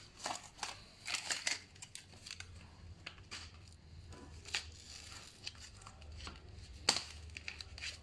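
Faint rustling and crinkling of foam wrap and cardboard packing on a new bicycle being handled, with scattered small clicks and a sharper tap near the end.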